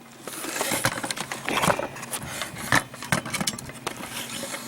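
Scraping and irregular clicking and knocking of handling: the magnetic pickup tool and a recovered steel Simpson Strong-Tie connector being drawn up and handled.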